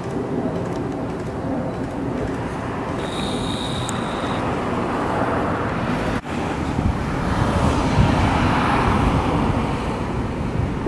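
Steady outdoor background noise with a low rumble like road traffic. A short, high steady tone sounds about three seconds in, and the noise briefly drops out a little after six seconds.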